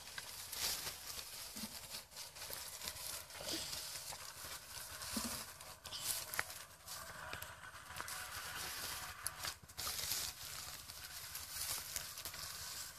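Footsteps crunching through dry rice stubble and squelching in wet mud, with the straw rustling and crackling in an irregular patter.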